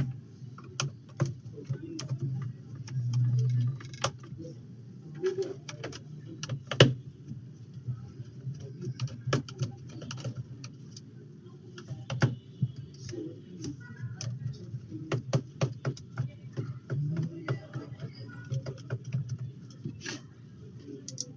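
Irregular light clicks and taps of a screwdriver and small screws against a laptop's plastic base as its back screws are loosened and lifted out, over a steady low hum.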